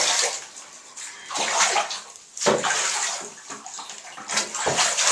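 Water splashing and pouring in a bathtub as a small dog is bathed, coming in irregular surges about a second apart.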